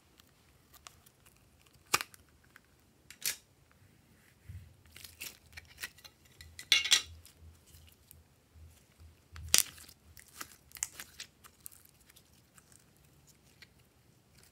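Glossy slime handled by hand: scattered sticky crackles and pops as it is pulled and squeezed, with a few sharp clicks, the loudest about two seconds in and near ten seconds.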